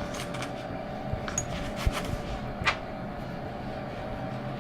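A few light clicks and knocks from hand tools being put away, spaced about a second apart, over a steady faint hum.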